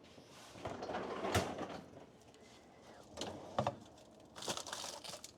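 Freezer door being opened and a tray slid inside: a sharp click, a couple of knocks and scraping, then a hissing rush near the end.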